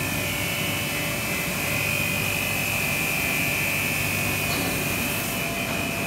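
Plastic recycling pelletizing line running: single screw extruder with water-ring pelletizer, a steady machine drone with a high whine over a low hum.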